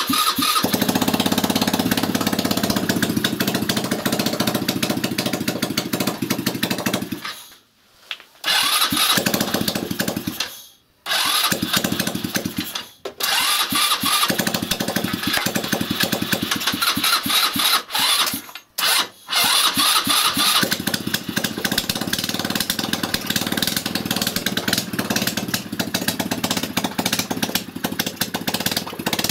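161QMK four-stroke single-cylinder scooter engine started and running, cutting out several times and catching again, on its first start after standing a long time.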